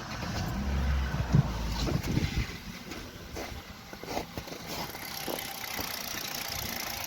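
Kia Rio 3 1.6 four-cylinder petrol engine starting with the power steering pump belt removed, heaviest for the first couple of seconds, then idling evenly with no knock, a sign that the knock came from the power steering pump and not the pistons.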